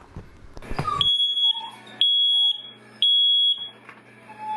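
Smoke alarm sounding its full alarm: a loud, high-pitched beep of about half a second, three times one second apart and then a pause. This is the standard three-beep pattern of a smoke alarm in alarm, not a low-battery chirp.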